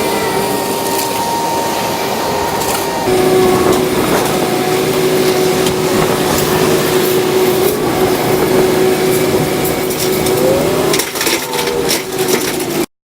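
Construction-site machinery running steadily with a held mechanical whine, overlaid with scattered knocks and clatter; the sound cuts off suddenly near the end.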